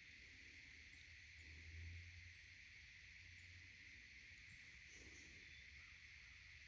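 Near silence: quiet woodland ambience with a faint steady high hiss and a low rumble that swells briefly about two seconds in.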